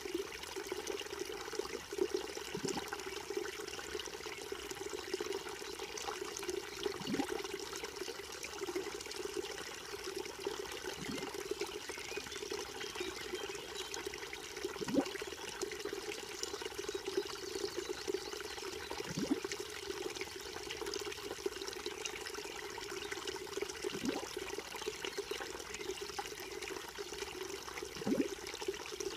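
Small creek trickling and gurgling steadily, with a single deeper gurgle every few seconds.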